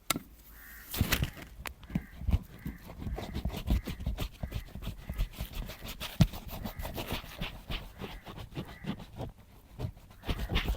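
Hands working on leather boots: a dense, irregular run of brush strokes, taps and scrapes, starting suddenly after a quiet moment.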